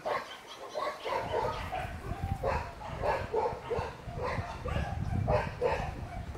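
Dogs barking again and again, about three barks a second.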